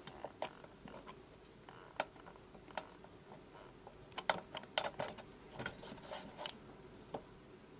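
Irregular metallic clicks and taps of hand tools and bolts being handled while the motorcycle's rear suspension linkage is bolted up, with quicker runs of clicks about four and six seconds in.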